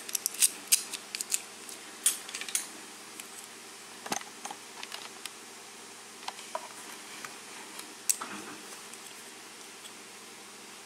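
Small metallic clicks and taps of tools and parts being handled on a disassembled KIK lock cylinder, close together at first, then scattered, with a last sharp click about eight seconds in.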